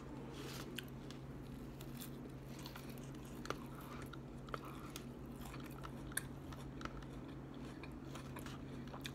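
A person chewing a mouthful of salad greens, crunching, with scattered sharp clicks of a plastic fork against a plastic salad container as she picks through it.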